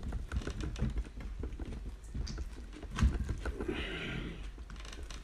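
Large kitchen knife cutting and prying into a cooked lamb's head on a wooden cutting board: irregular taps, knocks and scrapes of the blade against meat, bone and board, with one louder knock about three seconds in.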